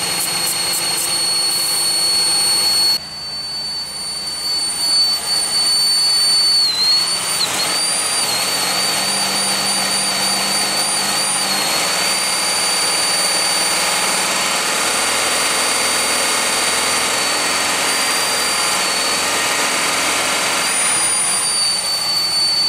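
Pontiac Aztek GT's 3.4-litre V6 idling with a loud, steady high-pitched whistle that wavers several times a third of the way in: a vacuum leak, which the owner traces to the upper intake plenum gaskets. An aerosol can hisses as it is sprayed around the plenum for the first few seconds.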